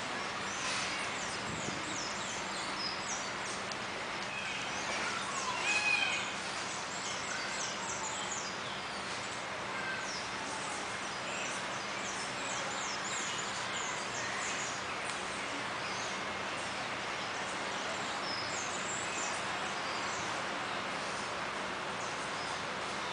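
Outdoor ambience: small birds chirping in short, high notes on and off over a steady hiss, with a louder run of gliding call notes about six seconds in.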